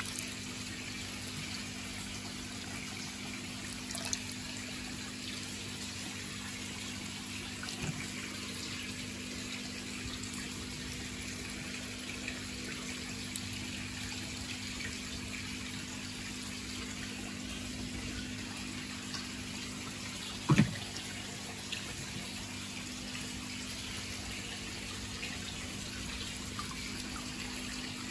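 Water running and splashing steadily, with a constant low hum underneath. A few light clicks, and one loud knock about two-thirds of the way through.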